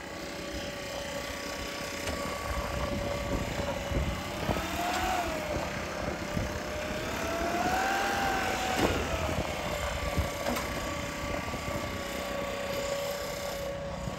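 Kubota DC-105X rice combine harvester's diesel engine running steadily, its pitch rising briefly about five seconds in and again, longer, around eight seconds in as it revs up and settles back.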